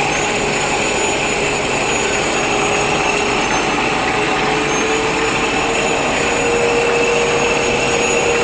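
Steady machine noise of a running stretch film production line: motors and blowers running together under a continuous whine that rises slightly in pitch around the middle.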